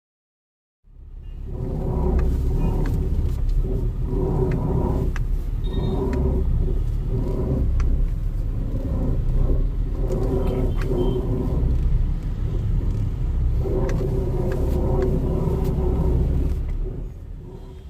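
Audi power steering rack noise while the steering is turned, over a running car: a low rumble that swells and eases in pulses of a second or two, with scattered clicks. The noise is the sign of a faulty steering rack. It starts about a second in and drops away near the end.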